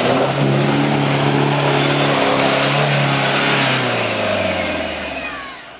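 Troller 4x4's diesel engine revving under load as it pulls through deep mud, holding a steady note. Near the end the revs drop and the sound fades, then cuts off suddenly.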